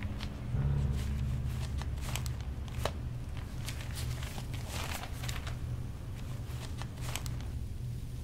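Paper rustling and crinkling as sheets in a file folder are handled and leafed through, in short scattered rustles over a low steady hum.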